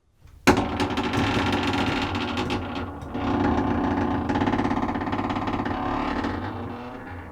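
An old door hinge creaking in one long, rough, rattling creak that starts abruptly about half a second in, dips briefly near three seconds, then carries on and fades toward the end.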